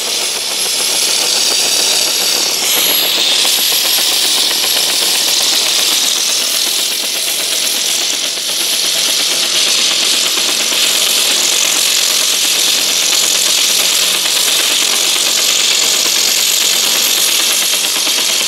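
RC helicopter sound module playing a simulated UH-1H Huey in steady flight: a continuous turbine whine with a fast, even rotor-blade chop.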